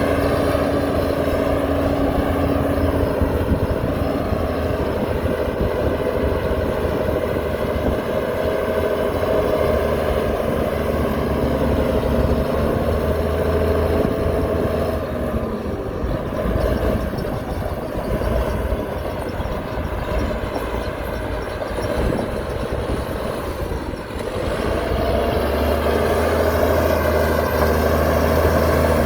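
Heavy diesel engine of earthmoving machinery, a dump truck or bulldozer, running steadily under load. It eases off briefly near the end and then picks up again.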